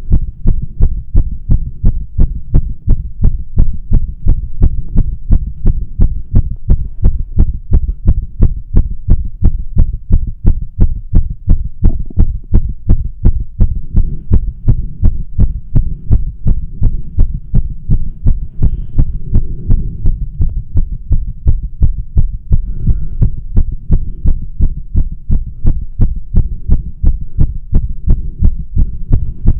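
A man's own heart heard through a stethoscope chest piece fitted with a microphone, beating fast in a steady, even rhythm of low thumps. This is a spontaneous bout of tachycardia, not brought on by exercise or caffeine.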